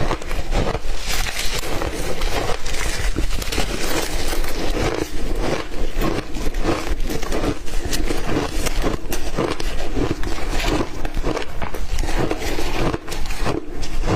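Close-miked crunching of ice being chewed: a dense, unbroken run of sharp cracks and crunches.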